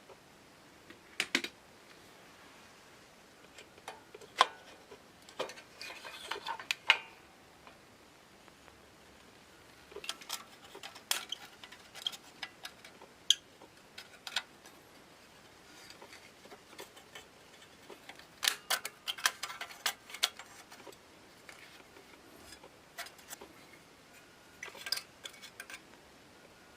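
Irregular clicks and light metallic clinks of small lantern parts and tools being handled and set down during disassembly, coming in short clusters with pauses between.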